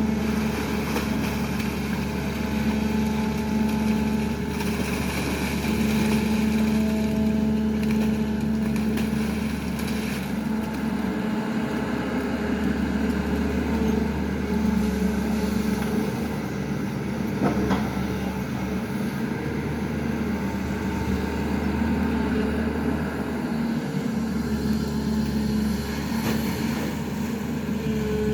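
SANY excavator's diesel engine running steadily under working load, its tone shifting slightly as the machine works.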